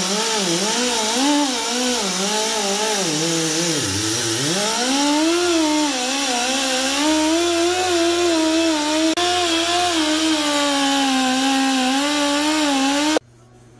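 Air-powered rotary tool spinning a fine-grade red abrasive disc against the aluminium face of a BMW M10 cylinder head, polishing rather than cutting the metal. Its steady whine wavers in pitch as the disc is pressed and moved, dips sharply about four seconds in before picking back up, and cuts off suddenly near the end.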